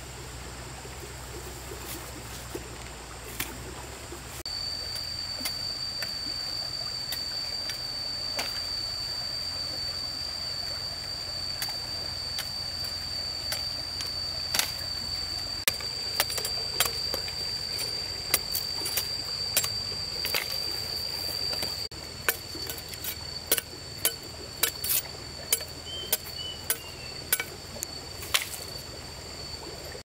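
Steady noise like running water, with scattered sharp clicks. A steady high-pitched whine comes in about four seconds in and weakens about two-thirds of the way through, while the clicks grow more frequent toward the end.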